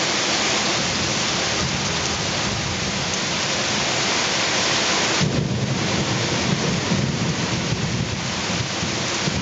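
Heavy rain falling steadily during a thunderstorm, with a low rumble of thunder growing about halfway through.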